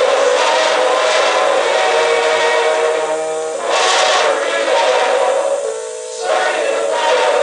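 A men's glee club singing held chords.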